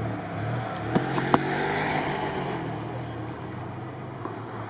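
GAZ-66 truck's engine revving under load, its pitch rising and falling, with two sharp knocks about a second in.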